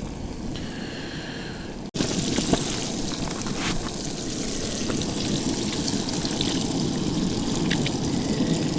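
Fish frying in hot oil, a steady sizzle with scattered crackles. It is quieter for the first two seconds, then louder after an abrupt cut.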